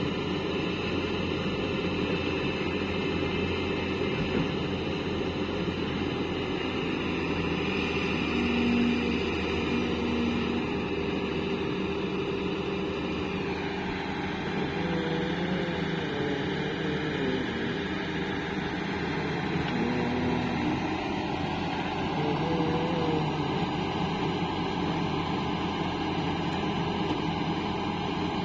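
Caterpillar excavator's diesel engine running steadily while the machine works at loading, with its pitch shifting about halfway through. A few short wavering tones come and go over the engine.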